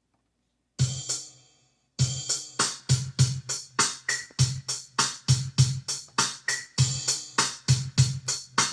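Casio CT-670 keyboard's built-in rhythm 04 playing at tempo 100: an electronic drum pattern of low kick thumps and crisp high hits in a steady beat, about three hits a second. It starts with a single hit about a second in, then the pattern runs on from about two seconds in.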